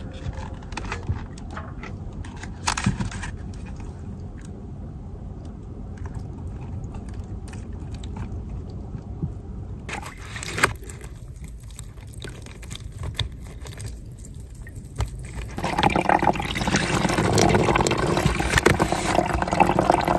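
Water poured and splashed while washing things by hand, with clicks and scrapes of handling and a low steady rumble underneath; about three-quarters of the way in the pouring gets much louder and runs on.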